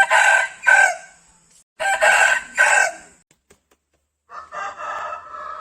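Rooster crowing three times. The first two crows are loud; the third, starting about four and a half seconds in, is quieter.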